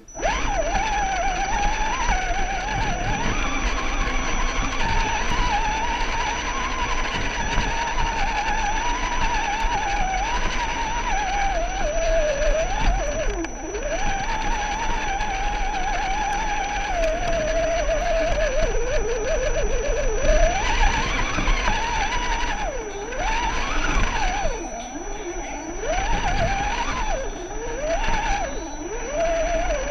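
Electric motor of a radio-controlled scale crawler whining as it climbs, its pitch rising and falling with the throttle, over a constant thin high-pitched tone.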